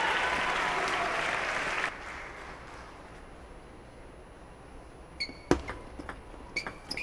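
Crowd applause that cuts off sharply about two seconds in. After a quiet stretch, a table tennis rally starts: sharp clicks of the ball off rackets and table, some with a short high ping.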